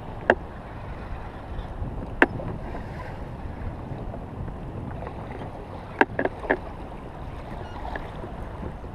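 Wind and choppy water lapping around a fishing kayak, a steady low wash. A few sharp knocks break through it: one about a third of a second in, one a little after two seconds, and three close together around six seconds.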